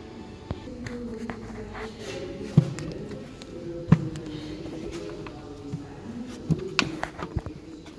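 A wavering melody of background music, over sharp clicks and knocks from hands working the plastic air filter housing and its lid clips, two loud ones in the first half and a quick cluster near the end.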